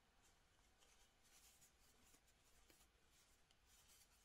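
Near silence, with a faint scratchy rustle of yarn being drawn through stitches by a crochet hook.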